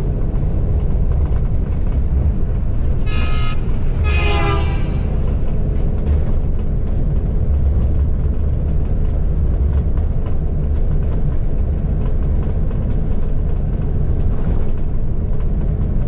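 Bus cabin engine and road rumble while driving. A vehicle horn sounds twice, briefly, about three seconds in; the second blast falls in pitch.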